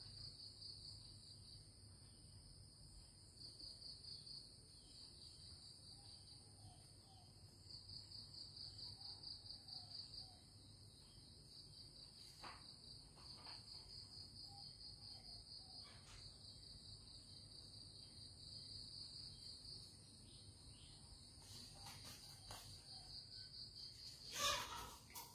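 Faint insect chirping, crickets by the sound of it: a steady high-pitched trill that pulses on and off. A few faint clicks fall in the middle, and there is a short, louder burst of noise near the end.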